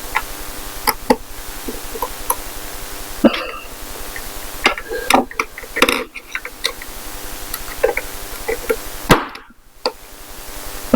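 Small metal parts of a vintage cabinet door lock being handled and fitted together: scattered clicks and knocks, some with a brief ring, over a steady hum.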